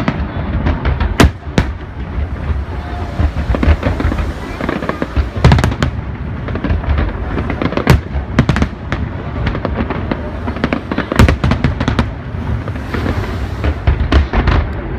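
Aerial fireworks shells bursting in quick succession: sharp bangs, several of them in tight clusters, over a continuous low rumble of booms.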